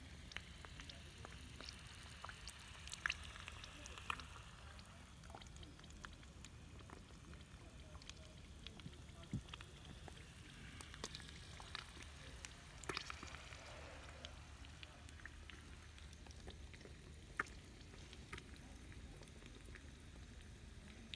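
Faint, irregular crackling and clicking over a steady low hum, with a few sharper clicks scattered through.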